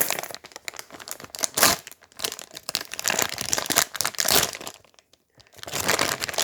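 Plastic packaging being opened with scissors, crinkling and tearing in irregular rustling bursts, with a short pause about five seconds in.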